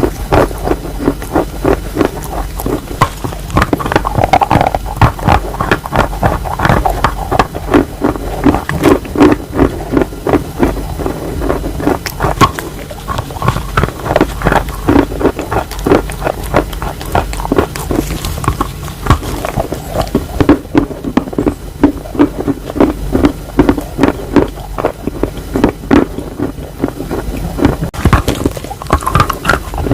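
Wet chalk being chewed close to the microphone: rapid, irregular crunching, many bites and chews a second.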